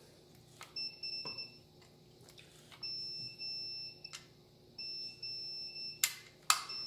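A multimeter's continuity beeper giving long, steady high beeps, three or four times, each one marking the foot pedal's switch contacts closing across the purple and brown wires. Clicks of the pedal and switch come between the beeps, with two sharp, louder clicks near the end.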